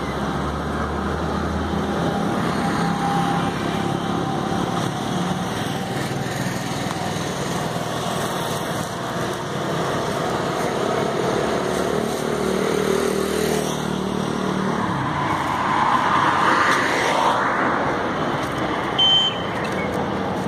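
Steady traffic noise, with one vehicle passing louder about three quarters of the way through and a short high beep near the end.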